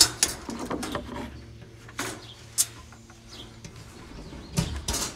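Irregular clicks, taps and knocks of hands working a cage live trap while setting it, with the phone rubbing close to the hand.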